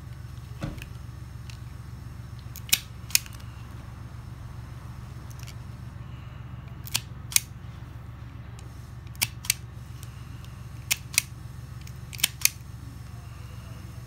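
Pittsburgh 6-1/2 in. self-adjusting wire stripper stripping wire ends, giving five sharp double clicks spaced a few seconds apart over a steady low hum.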